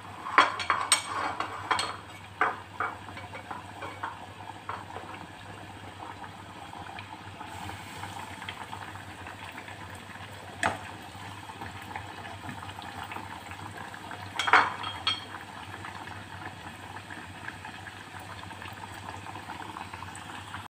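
Elephant yam slices deep-frying in a pot of hot oil, the oil bubbling with a steady hiss. A few sharp clicks break through: a cluster in the first two seconds, one about eleven seconds in and a few more around fifteen seconds.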